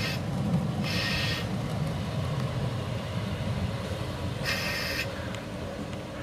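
Mariazellerbahn narrow-gauge train running with a steady low rumble. Its wheels give two brief high squeals, about a second in and again about four and a half seconds in.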